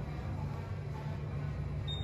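Otis Gen2 traction elevator car in motion, a steady low hum from the moving car. Near the end a single high beep sounds as the car reaches the floor.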